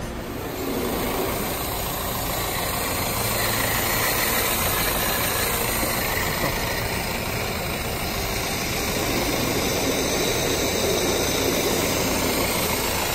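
Honda Amaze's four-cylinder diesel engine idling steadily while it runs through an engine decarbonisation treatment.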